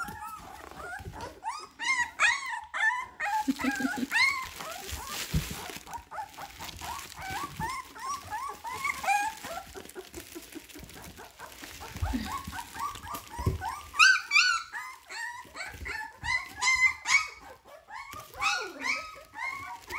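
A litter of young puppies whining and yelping, many short high cries overlapping almost without pause, with louder bunches of cries about two seconds in and again near fourteen seconds. A few soft low thumps come from the puppies moving about.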